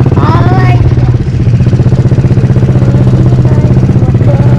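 A small engine running steadily and loudly close by, with a fast even pulsing beat, and a brief voice over it in the first second.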